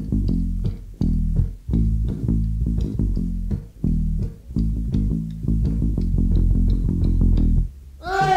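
Bass guitar playing a rhythmic riff of plucked low notes in short phrases, with little else above it. Near the end it stops briefly and the full rock band and a voice come in.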